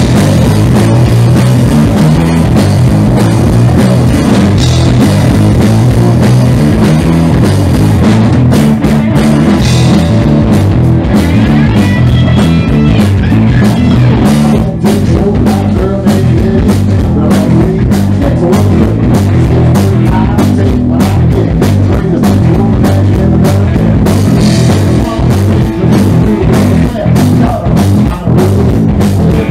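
Southern roots rock band playing loudly and steadily, with electric guitar and drum kit.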